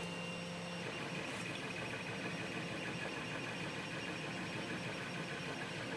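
Steady background hiss with a faint hum that stops about a second in; no distinct clicks or knocks.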